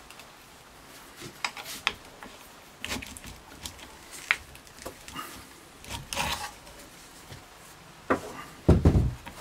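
Spanner clicking and scraping on the rusty bolts of a drill-press stand's clamp as they are undone, with scattered metal knocks and a rattle about six seconds in. A heavy thud near the end as the old electric drill, freed from the clamp, comes down on the wooden workbench.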